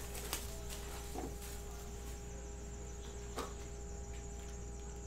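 Faint rustling and a few light clicks as shrink-wrap is pulled off a trading-card box and its cardboard lid is flipped open, over a steady hum and a high steady whine.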